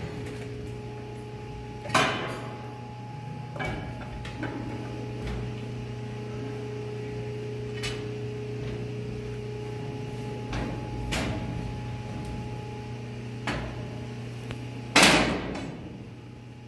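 Steady machinery hum of a ship's engine room, broken every few seconds by sharp metallic clanks and knocks of hand tools and steel bars, the loudest about fifteen seconds in.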